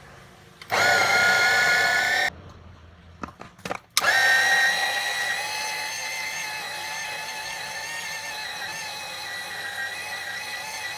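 Electric food chopper's motor whining in a short burst of about a second and a half, then a few quick taps. From about four seconds in it runs continuously, its pitch rising briefly as it spins up and then holding steady, as the blades grind a mushroom, tofu and carrot mix finer.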